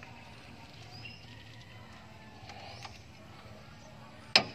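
Faint steady background with a few faint high chirps, then a sharp metallic clink near the end as a metal part or tool is knocked during the hub assembly work.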